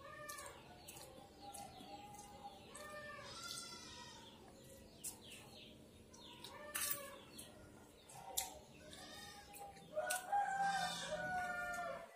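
Chickens clucking in the background, with a rooster crowing about ten seconds in. A few sharp clicks come from a metal spoon scooping papaya.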